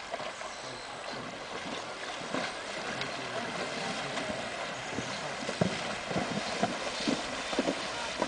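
Horse wading through a shallow river, its hooves splashing water in an irregular beat, with sharper splashes in the second half as it comes closer.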